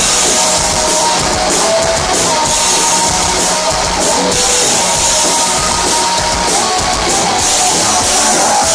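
Live rock band playing loud: electric guitar and drum kit, with cymbals crashing again and again.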